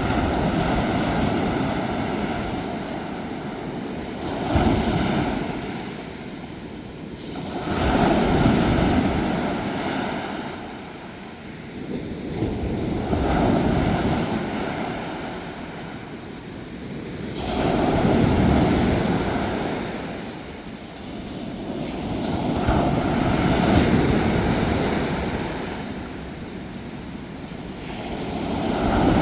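Sea waves breaking and washing up a shore, each surge swelling and fading away about every five seconds.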